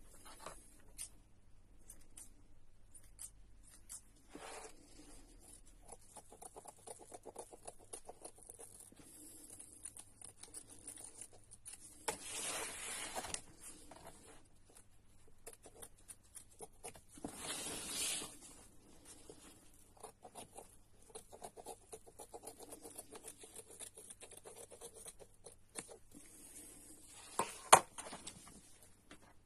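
Scissors trimming batting and fabric close around a stitched outline in a machine-embroidery hoop, among rustling of paper-like stabilizer. Two longer rasping noises come about twelve and seventeen seconds in, and a sharp click comes near the end.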